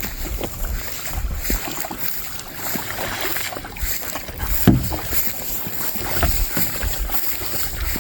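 Water movement and knocks around a kayak on a creek, with wind buffeting the microphone; a louder thump comes about four and a half seconds in.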